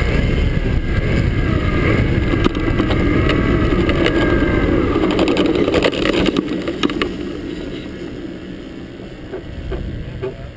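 Radio-controlled T-28 Trojan model warbird's engine and propeller running as the plane taxis on asphalt, with a heavy rush of prop wash over the wing-mounted microphone. The engine note wavers with the throttle and eases off after about six seconds, with a few sharp ticks along the way.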